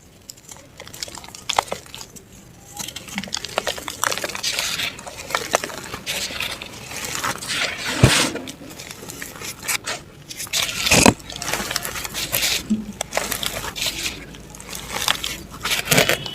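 Dry mud and black dirt crumbling and being crushed by hand, a quick run of crisp, crackly crunches. There is a heavier sharp break about 8 seconds in and another about 11 seconds in.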